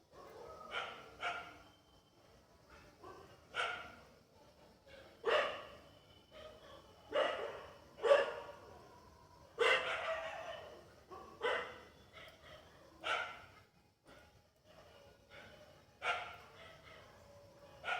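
A dog barking repeatedly, about a dozen short barks a second or two apart, some coming in quick pairs.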